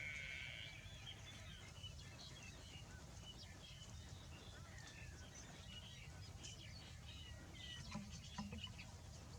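Faint outdoor ambience: scattered short bird chirps over a steady low rumble, with the tail of a drawn-out high animal call fading out in the first second.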